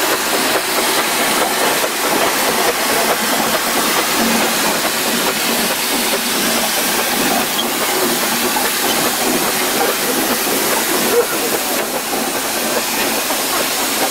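Steady hiss of escaping steam from steam traction engines on the move, with faint voices underneath.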